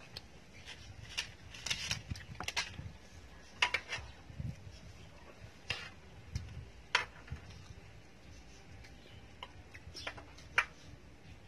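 Chopsticks and a metal spoon clicking and scraping against a round grill pan while food is picked up: scattered light taps with a few sharper clinks.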